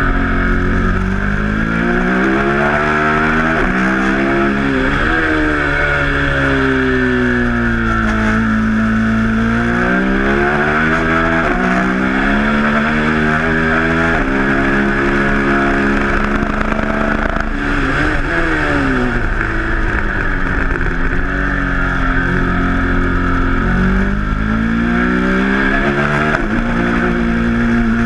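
Ducati Monster 1200's 1198 cc L-twin engine at full race pace: it climbs in pitch under hard acceleration, drops sharply at upshifts, and falls away under braking, several times over. Steady wind noise rushes under it throughout.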